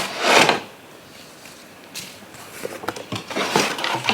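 Unboxing handling noise: a loud rustle of packaging about half a second long at the start, then after a short lull a run of small scattered clicks, taps and rustles as the contents are handled.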